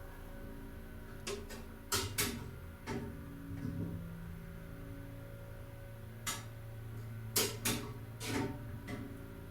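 Old elevator's motor humming steadily as the car runs, with a series of sharp clicks and clunks from the car and its machinery between about one and three seconds in and again near the end.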